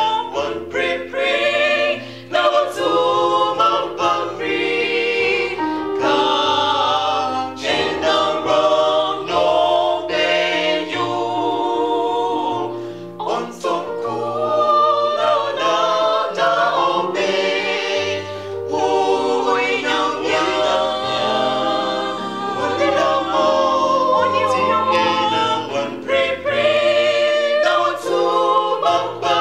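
A small mixed vocal group of two men and two women sings a gospel song in close harmony, with sustained low electronic keyboard notes underneath.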